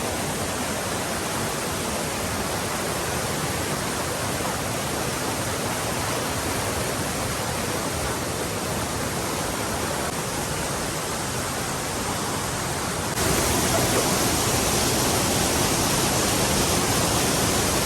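Waterfall on a rocky forest stream, its water rushing steadily. It becomes suddenly louder about thirteen seconds in.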